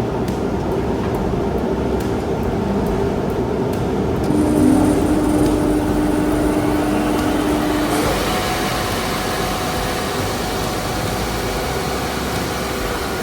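A woodworking machine running steadily, with a held tone entering about four seconds in and a brighter hiss taking over from about eight seconds.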